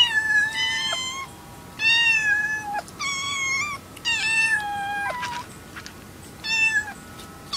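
Young kittens meowing: a run of about six high-pitched meows, each half a second to a second long.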